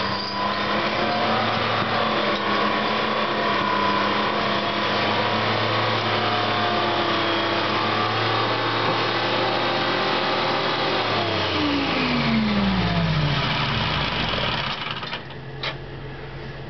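International Harvester log skidder's engine running steadily. About twelve seconds in it is shut off, and its pitch falls as it winds down to a stop over the next few seconds.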